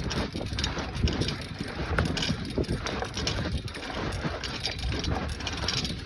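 Bicycle ridden over a rough dirt trail: irregular rattles and knocks from the bike, with wind rushing on the microphone.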